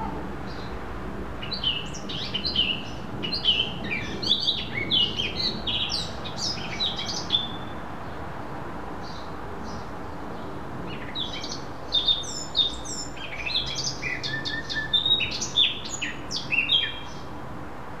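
A songbird singing in two long bouts of quick, varied high notes, each lasting about six seconds with a pause between, over a steady low background hum.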